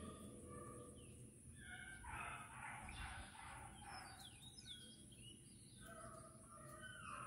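Faint, long drawn-out baying of beagles running a rabbit, with a few short bird chirps partway through.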